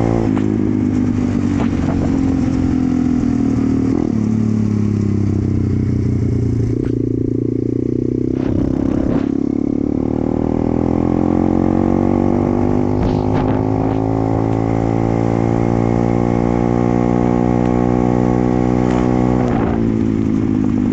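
Pit bike's single-cylinder four-stroke engine running under way. The revs drop just after the start, climb steadily for about ten seconds in the second half, and ease off near the end. A few brief knocks come through around the middle.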